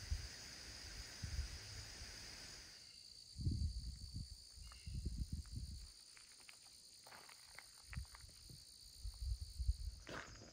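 Footsteps walking along a trail, irregular soft thuds with small clicks starting about three seconds in, over a steady high insect drone.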